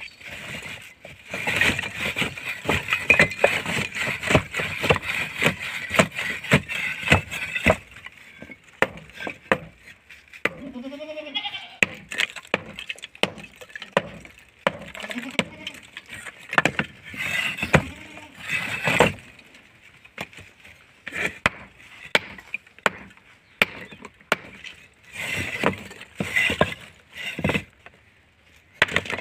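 Hand hammer striking broken concrete and brick over and over, sharp knocks at an uneven pace, chipping the concrete away to free the steel rebar set inside it. A farm animal bleats about eleven seconds in.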